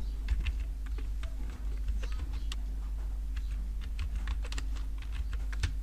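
Typing on a computer keyboard: irregular key clicks, several a second, over a faint steady hum.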